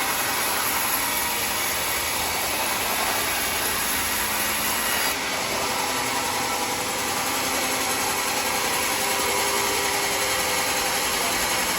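Sawmill saw cutting through a mahogany log with a steady, harsh noise. The sound shifts abruptly about five seconds in.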